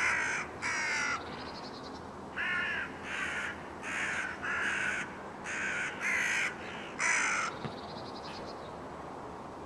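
Crows cawing: about nine harsh caws, often in pairs, stopping about seven and a half seconds in.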